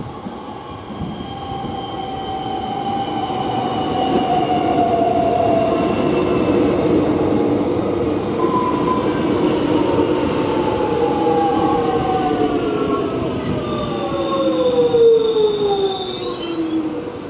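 Electric suburban train slowing into the station: the traction motors whine in several tones that fall steadily in pitch. In the last few seconds a high steady brake squeal sounds over the rumble of the wheels.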